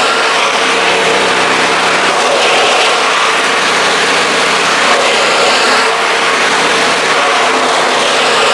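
Six-blade grass chopper machine running steadily on test, a loud continuous mechanical drone that holds one pitch.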